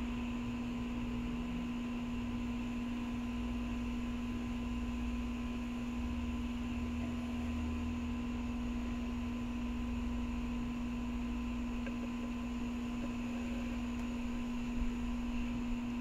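A steady hum on one pitch, with a faint low rumble under it and a few faint short sounds near the end.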